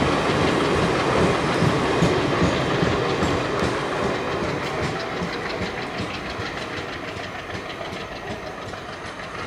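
Passenger coaches of a train rolling slowly past, wheels clacking over the rail joints, growing steadily quieter as the train moves away.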